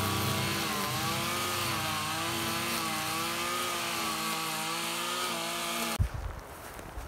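An engine running at a steady speed, its pitch wavering slightly up and down, cutting off suddenly about six seconds in. A few soft knocks and rustles follow.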